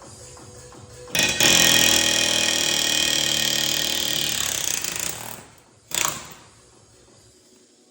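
A power tool working on steel runs loudly for about four seconds, then gives a second short burst. Quiet background music is heard around it.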